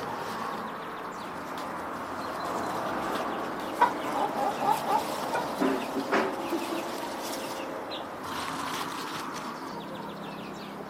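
Chickens clucking: a run of short clucks starting about four seconds in, over a steady background hiss.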